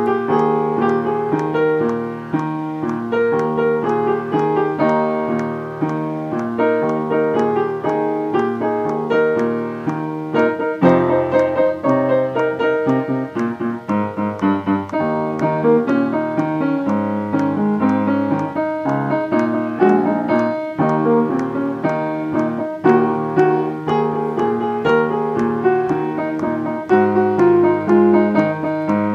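Piano accompaniment for a musical-theatre chorus number, playing full chords with frequent, evenly struck notes and no singing.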